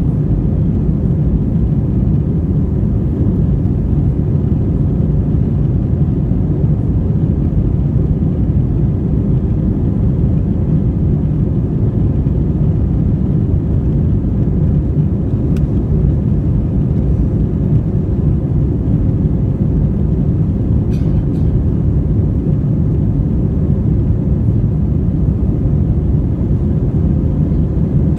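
Airbus A320 cabin noise heard from a seat behind the wing during the climb after takeoff: a steady, deep rumble of the engines and rushing air.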